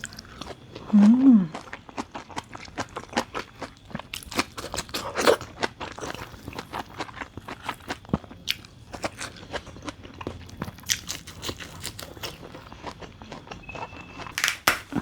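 Close-up chewing and crunching of blanched vegetables dipped in chili paste: a steady run of small crisp clicks and wet mouth sounds. About a second in there is a short hum of the voice that rises and falls.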